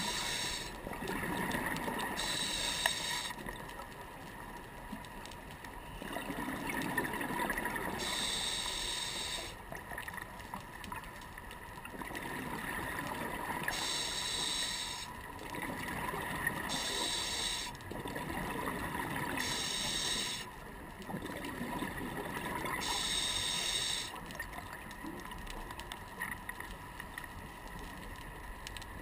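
Scuba diver breathing through a regulator underwater: a hissing inhalation every few seconds, each followed by a burst of exhaled bubbles gurgling out.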